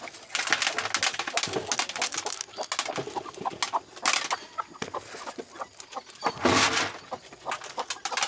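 Chickens clucking, among many short clicks and rustles, with a louder rush of noise about six and a half seconds in.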